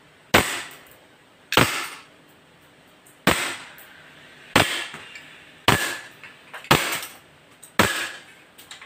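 WE M1911 gas blowback airsoft pistol firing seven shots, one every second or so, each a sharp crack of the gas discharge and slide cycling. That is one full seven-round magazine.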